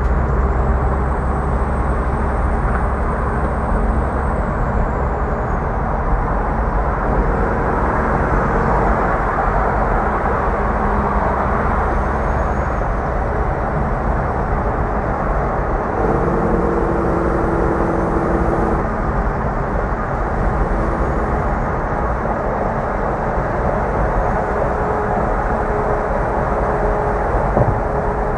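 Steady highway road noise heard from a moving car, tyre and wind noise mixed with the drone of a Kenworth W900 tractor-trailer's diesel engine running alongside. A few faint steady engine tones come and go, the clearest about sixteen to nineteen seconds in.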